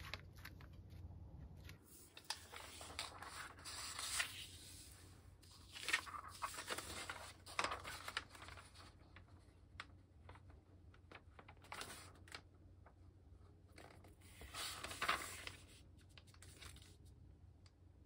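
A large sheet of origami paper being folded on a cutting mat: rustling and sliding in a few bursts, with sharp crinkles as the fold is creased and smoothed flat by hand.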